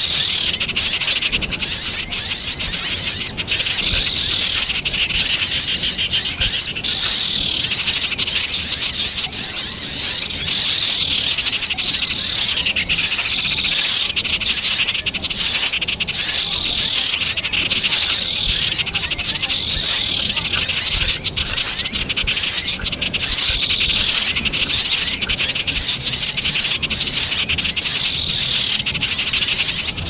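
Bird-lure recording of common iora rattling calls mixed with sunbird chirps, looped: dense, fast, high chirping with barely a pause, and a falling note every few seconds.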